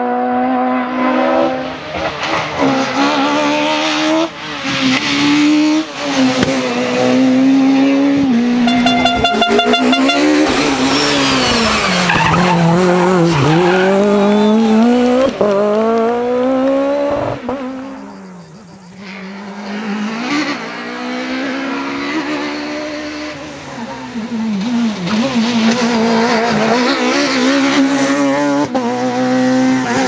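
Peugeot 306 Maxi rally car engines revving hard and shifting through the gears as the cars pass, the pitch climbing and dropping again and again, in several passes from clip to clip. The sound fades briefly about two-thirds through.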